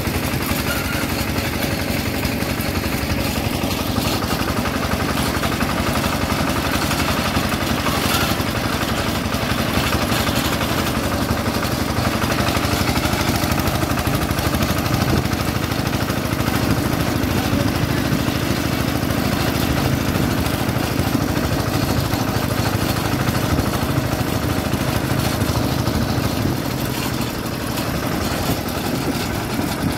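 Single-cylinder diesel engine of a two-wheel hand tractor running steadily as it drives along a rough dirt road, with a fast, even chugging beat.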